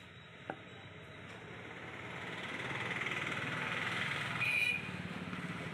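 A motor vehicle passing in the street, swelling up and fading away, with a short high beep at its loudest moment about four and a half seconds in. Just before that, about half a second in, a single cleaver chop lands on a wooden chopping block.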